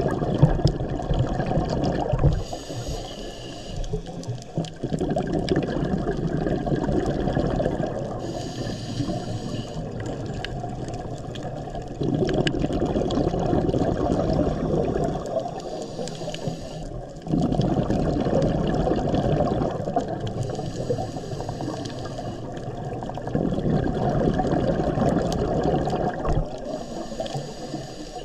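Scuba diver breathing through a regulator underwater: a thin hiss on each inhalation, then a long rush of bubbles on each exhalation, repeating every five or six seconds.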